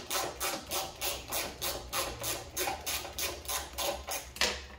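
Hand socket ratchet clicking in a steady rhythm, about four or five clicks a second, as a fender bolt is backed out; the clicking stops near the end.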